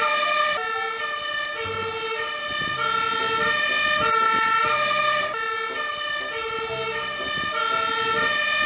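Fire engine's two-tone siren sounding, alternating steadily between a high and a low note as the Magirus aerial-ladder truck drives past.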